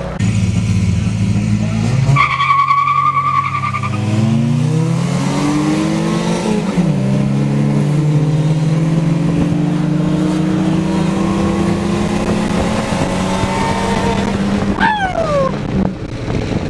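A car launching hard in a drag race: its tires squeal briefly about two seconds in, then the engine revs up, drops in pitch at a gear change about seven seconds in and pulls on steadily. A short falling whine comes near the end.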